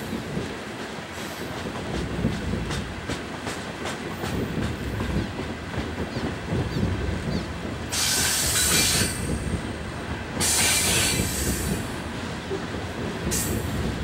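Loaded coal hopper cars rolling past, with a steady rumble and clatter of wheels on the rails. Short bursts of high-pitched wheel screech come about eight seconds in, again around ten and a half seconds, and briefly near the end.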